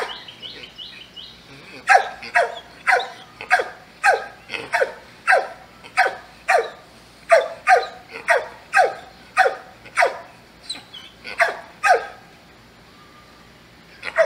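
A dog barking repeatedly, two to three barks a second, each bark dropping in pitch. The barking starts about two seconds in and breaks off about twelve seconds in, with one more bark at the very end.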